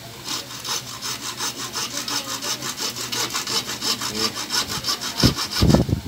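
Hand hacksaw cutting through a thin wooden spacer strip, rapid even back-and-forth strokes, with a couple of dull thumps near the end.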